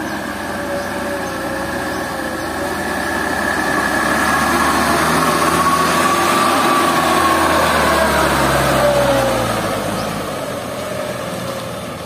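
Mitsubishi light dump truck's diesel engine running as the loaded truck drives past, growing louder to a peak in the middle and fading toward the end. A whine rises in pitch and then falls away as it passes.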